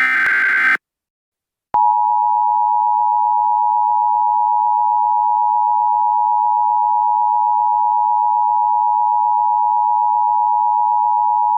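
A short Emergency Alert System digital data burst, a buzzy warbling tone lasting under a second. After a second of silence comes the EAS attention signal: a steady two-tone alarm, 853 and 960 Hz sounded together, held for about ten seconds before cutting off.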